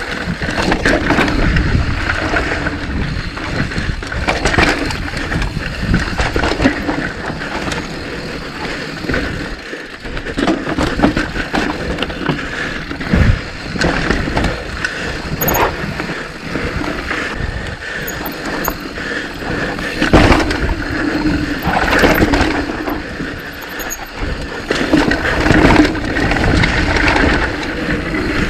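Mountain bike ridden along a rough trail: continuous rolling and rushing noise from the tyres and air, broken by frequent rattles and knocks as the bike goes over bumps.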